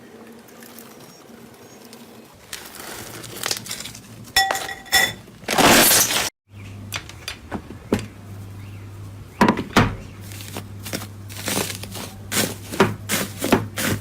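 Slime being handled close to the microphone: irregular crackles, pops and sharp clicks, with a short ringing clink about four and a half seconds in and a loud rustle just before the middle. A steady low hum sits under the second half.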